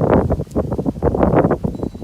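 Wind buffeting the microphone in loud, uneven gusts.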